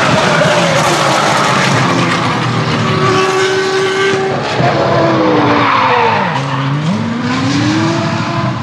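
Ferrari racing car engine running hard on track; its pitch drops steeply about six seconds in, holds low briefly, then climbs back as the car accelerates again.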